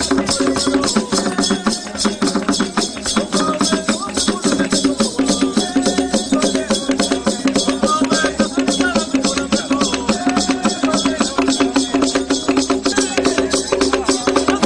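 Traditional Japadhola dance music: a fast, even beat of drums and rattling percussion with pitched parts, and what sound like voices weaving over it.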